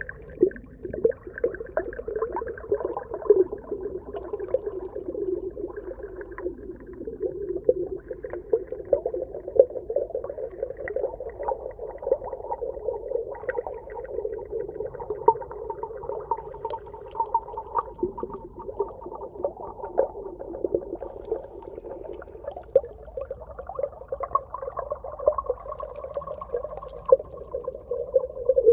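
Underwater ambience: a steady, muffled, hollow wash of sound, dotted all through with frequent small clicks and pops.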